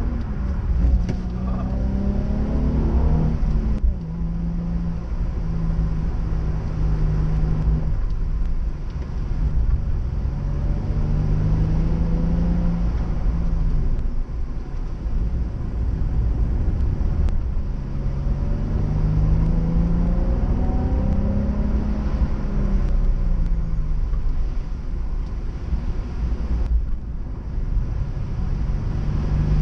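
Nissan 350Z's 3.5-litre V6 engine under hard driving over a steady low rumble. Its pitch climbs through the revs several times and drops away between the climbs as the car shifts or lifts off.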